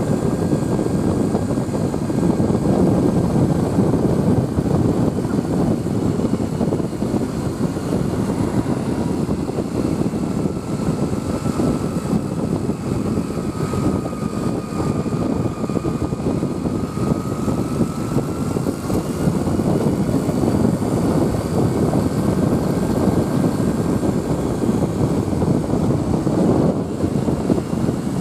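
Steady rumbling vehicle noise, with a faint whine that sags slightly in pitch midway and then rises again.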